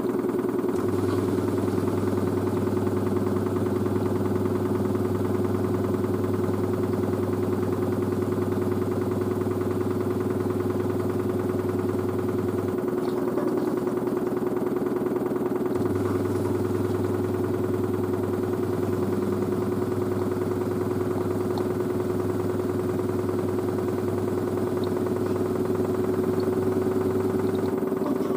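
LG DirectDrive F1496AD washer dryer spinning its drum with a steady motor whine, while a low drain-pump hum switches on, stops partway through, then runs again and stops near the end.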